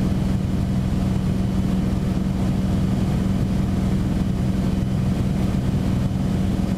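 Beechcraft Bonanza's piston engine and propeller running steadily in cruise flight, heard inside the cabin as an even drone with a strong low hum.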